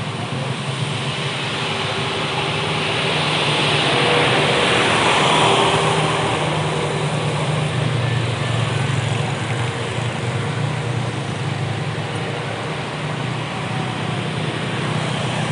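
Road vehicle engine running as it passes, swelling to its loudest about five seconds in and then easing back to a steady low rumble.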